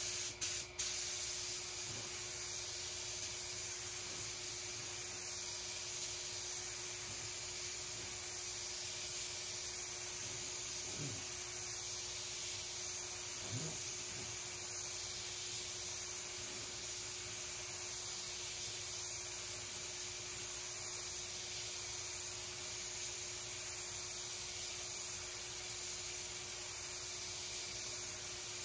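Gravity-feed paint spray gun hissing as compressed air sprays paint onto a sheet-metal panel. It stops twice briefly in the first second, then runs in one continuous pass. A faint steady hum sits underneath.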